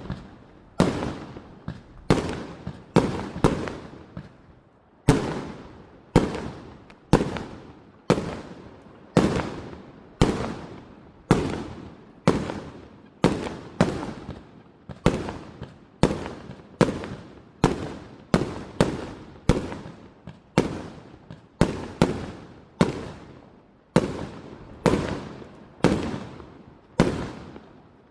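Fireworks going off in a long run of sharp bangs, about one to two a second, each fading away in a short echoing tail, with a brief lull about four seconds in.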